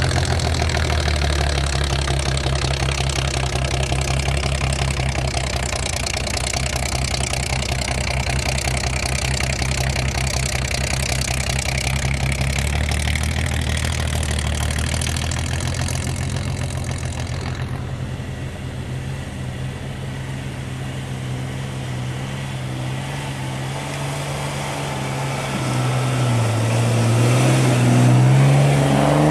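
An off-road 4x4's engine running steadily, with a broad hiss over it that falls away a bit past halfway. Over the last few seconds the engine revs up, rising in pitch and loudness.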